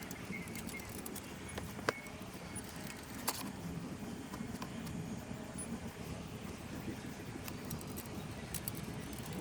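Scattered light metallic clinks and taps of tools and hardware while handlebars are being swapped on an ATV, with two sharper knocks about two and three seconds in, over a steady low rumble.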